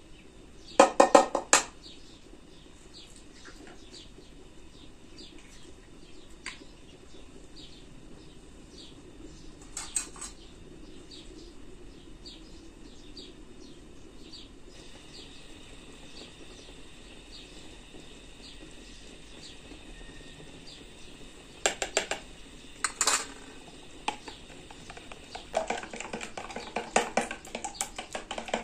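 Utensil clicking against a plastic bowl as eggs are beaten: a quick run of taps about a second in, a few single clicks, then fast, steady beating near the end.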